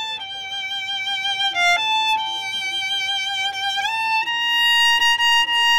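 Solo violin playing a slow melody of long held notes, sliding up into a higher held note about four seconds in.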